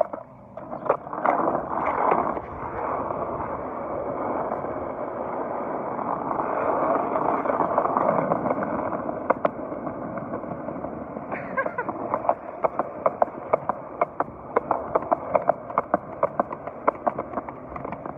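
Skateboard wheels rolling on a concrete sidewalk: a steady rolling rumble that swells about seven to nine seconds in and then eases. In the second half come sharp clicks, several a second.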